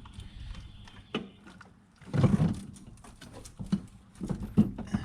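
Scattered clunks and knocks of tools and parts being worked in a van's engine bay during a Hydro-Boost brake booster refit, loudest about two seconds in.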